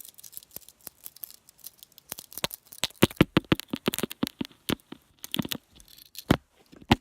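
Close-up handling noise: rapid, irregular crackling and clicking, like plastic being crinkled and fumbled, getting louder and denser about two seconds in.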